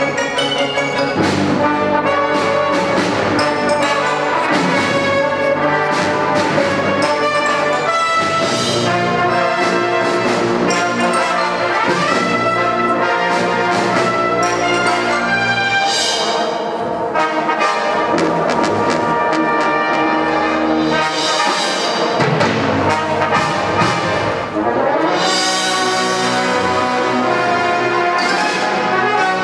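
Brass-led band music, trumpets and trombones playing over a steady run of drum hits.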